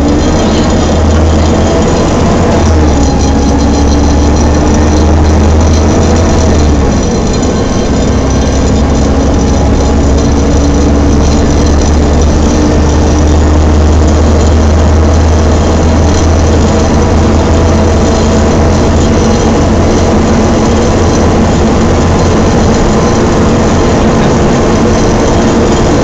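On-board sound of a Volvo B7TL double-decker bus under way. Its six-cylinder diesel drones low, the Voith automatic gearbox whines and the cooling fan hisses like a hoover. The engine note changes twice in the first seven seconds, and the whine then holds or rises slowly.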